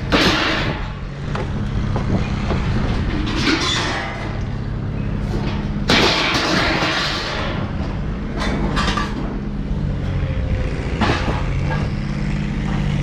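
Scrap metal being thrown out by hand, clattering and crashing several times onto a scrap pile, the loudest crash about six seconds in. Under it a vehicle engine runs steadily.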